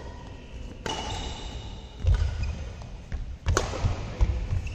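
Badminton rally: two sharp racquet-on-shuttlecock hits, about a second in and about three and a half seconds in, with low thuds of players' feet on the court between them.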